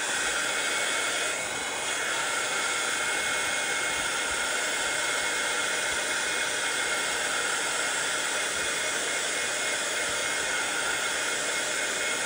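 Craft heat gun blowing steadily, drying wet paint on a vellum stencil piece.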